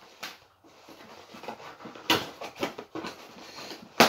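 Cardboard shipping box being opened by hand: flaps pulled open and packaging inside rustling and scraping in short bursts, with one sharp snap near the end.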